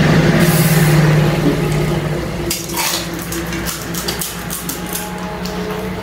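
Crisp pani puri shells cracked open with fingers and chewed, a scatter of sharp crackles, over a steady low hum that is loudest in the first two seconds and then fades.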